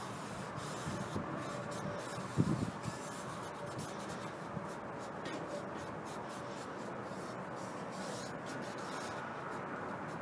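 A lens wipe rubbed back and forth over a bead-blasted steel test blank, a soft scratchy wiping. A brief low thump comes a couple of seconds in.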